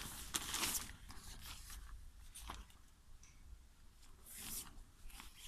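Thin plastic rain cape rustling and crackling as it is unfolded and shaken out, loudest in the first second, with a short crackle about halfway and another rustle near the end.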